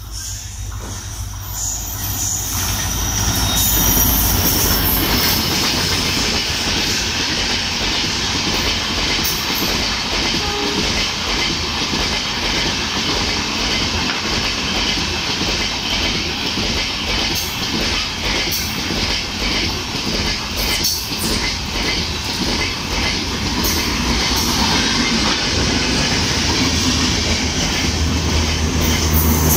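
Express passenger train of LHB coaches running through a station at speed on the nearest track: a steady heavy rumble and wheel clatter that builds over the first few seconds as the train arrives, then holds while the coaches pass.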